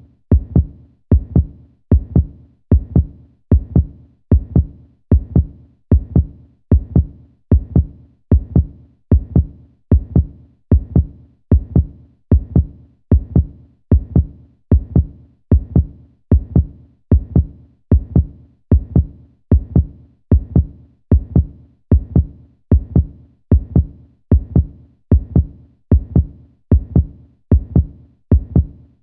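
Human heartbeat sound effect: a steady, slow lub-dub, each beat a pair of low thumps, about one beat a second.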